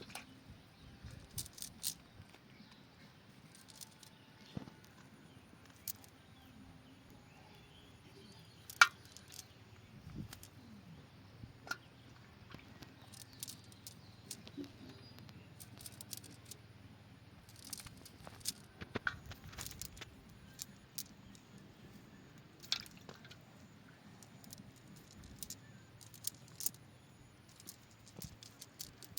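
Scattered water drips and small wet splashes with sharp clicks here and there, the loudest about nine seconds in.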